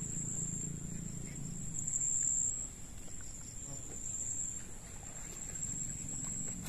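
Crickets chirring in a steady, high-pitched, unbroken trill that swells slightly now and then.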